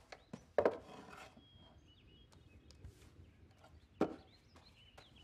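Quiet handling sounds at a wooden desk: a few light knocks of small objects on wood and brief rustling, the loudest about half a second in and again about four seconds in.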